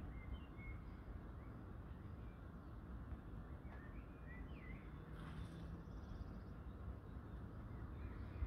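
Wild birds calling now and then: short high chirps, some sliding up or down in pitch, over a low steady background rumble.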